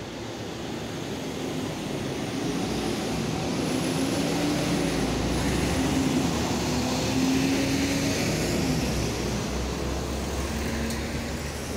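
Heavy road traffic driving past close by: an Isuzu flatbed truck and a box van, their engine and tyre noise building to a peak midway and easing off near the end.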